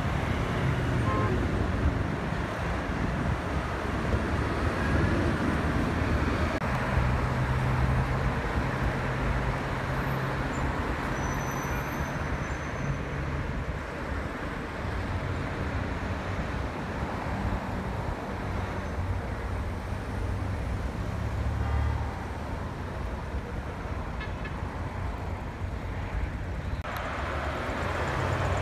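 Steady road traffic noise: cars driving past on a busy multi-lane city street, engines and tyres blending into a continuous rumble.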